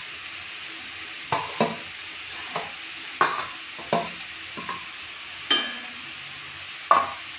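A metal spoon scraping and knocking grated carrot off a metal plate into an iron kadhai: about eight sharp clinks and knocks, one about halfway through ringing briefly. Underneath, the grated carrot sizzles steadily in hot ghee.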